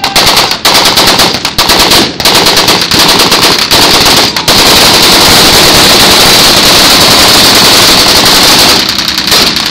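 Machine-gun fire, several short bursts and then one long burst of about four seconds that stops near the end, loud enough to overload the microphone.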